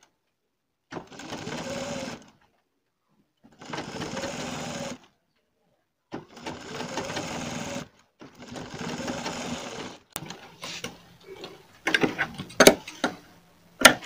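Sewing machine stitching pearl-bead lace onto the edge of a brocade blouse piece, running in four short spurts of about a second and a half each with pauses between. In the last few seconds the machine is silent and there are scattered sharp clicks and knocks.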